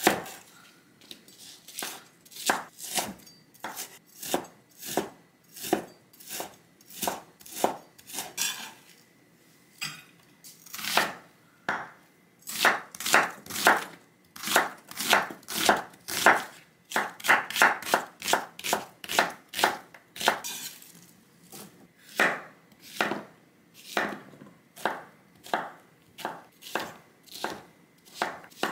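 Chef's knife chopping food on a wooden cutting board: a steady run of sharp knife strikes, about two a second, with a couple of short pauses. The knife cuts through ham, then onion, then zucchini.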